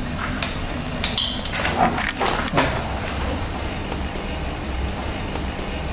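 Steady low rumble of background noise, with a few faint, brief sounds between about one and three seconds in.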